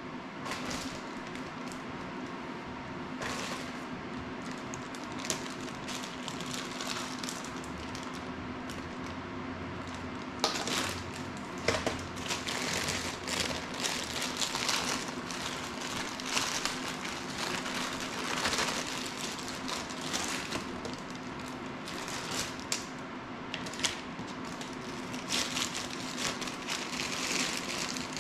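Clear plastic bag crinkling and crackling as it is handled and opened, irregular and busiest from about ten seconds in, with a few isolated clicks before that. A steady low hum runs underneath.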